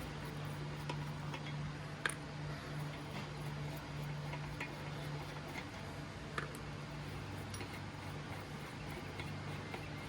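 A few sharp metallic clicks and taps of lug nuts and a tire iron being worked off a Jeep Wrangler wheel, the loudest about two seconds in, over a steady low hum.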